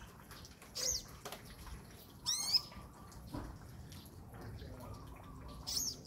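Olive-backed sunbird calling: three short bursts of sharp, high chirps, about a second in, a little over two seconds in (the loudest), and again near the end.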